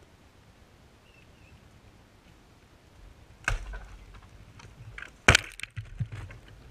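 A dead tree breaking and falling. A sharp crack of wood comes about halfway through, then a loud crash as the trunk lands on or right beside the camera, followed by a few smaller knocks of falling wood.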